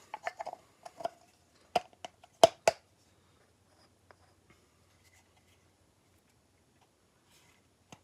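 A few sharp wooden knocks and clicks from small wooden workpieces being handled and set down, the loudest about two and a half seconds in, then quiet.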